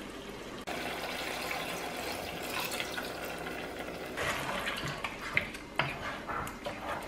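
Thin coconut milk poured into a pot of simmering chicken curry, a steady pour from about a second in. Near the middle a wooden spatula takes over, stirring the milk through the curry, with a few knocks against the pot.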